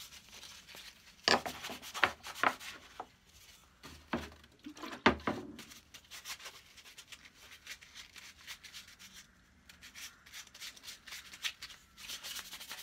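Cloth rag and gloved hands rubbing Danish oil into a wooden saw handle: irregular scratchy rustling, broken by a few short sharp knocks, the loudest about five seconds in.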